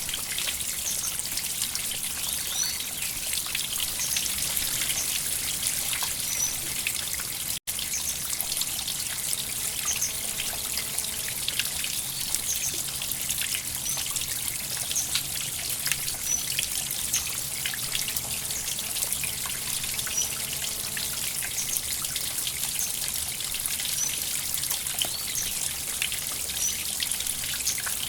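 River water flowing and trickling steadily, with many small splashes. Faint short high chirps recur every second or two, and the sound cuts out for an instant about eight seconds in.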